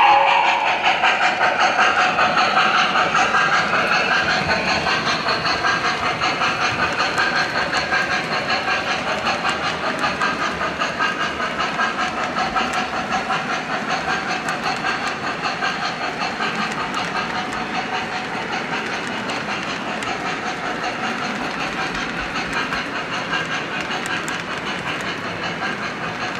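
MTH model train rolling past: a steady rolling rumble with a rhythmic clicking beat, slowly fading as the train moves away.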